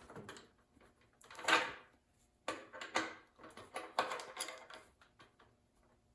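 A bottom-bracket removal tool being worked with a wrench on a bicycle's bottom bracket: a few short scraping clunks of metal on metal, about a second apart.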